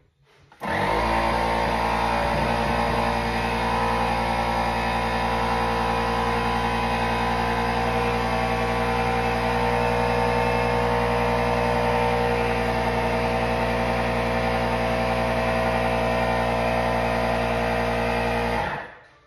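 Electric tire inflator running steadily, its motor and pump giving an even hum while it pumps an e-bike tire up toward 30 PSI. It starts just under a second in and cuts off suddenly near the end.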